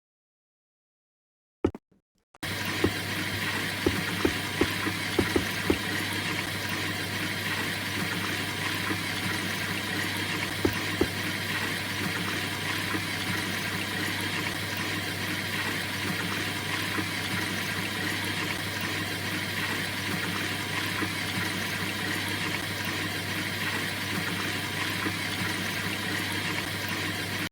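LG washing machine taking in water for the wash: after a click about two seconds in, a steady rush of water with a low hum, and a few sharp clicks and taps over the next several seconds.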